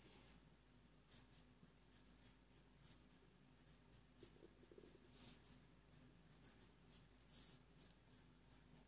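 Very faint scratching of a felt-tip pen drawing on paper, in short scattered strokes.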